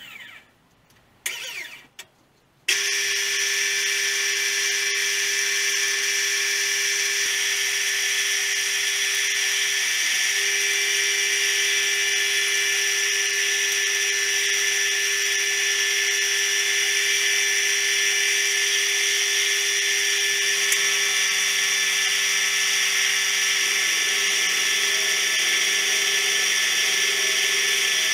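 Milling machine starting in a couple of short bursts, then running steadily from about three seconds in with a constant whine as a 12 mm four-flute end mill cuts slots in a metal T-nut blank. A lower hum joins about twenty seconds in.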